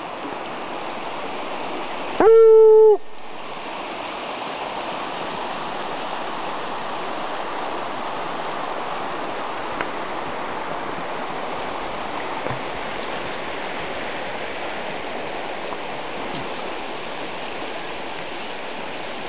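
Steady rushing of a running stream, with one loud, drawn-out "ooo" call about two seconds in.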